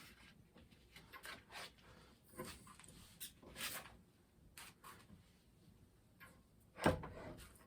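Faint scattered rubbing and clicking of a 2x72 abrasive belt being handled and fitted onto a belt grinder's wheels, with one louder knock about seven seconds in.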